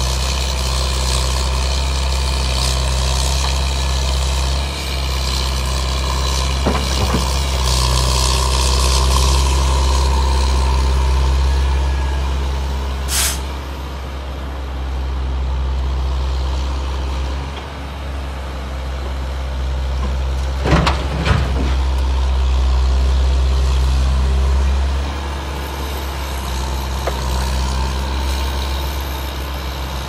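Heavy diesel engines of dump trucks and a crawler excavator running with a steady deep drone. A short sharp hiss comes a little before halfway, and there are a few knocks about a quarter of the way in and about two-thirds through.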